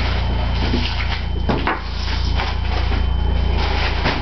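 Small objects being picked up and set down on a wooden table: scattered knocks, clicks and rustles over a steady low hum.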